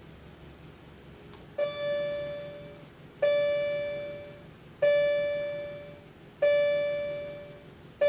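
Fire alarm speaker-strobe playing a voice-evacuation alert tone: one pitched chime-like tone repeated four times, about every second and a half, each starting sharply and fading away. It is the alert that leads into the recorded evacuation message.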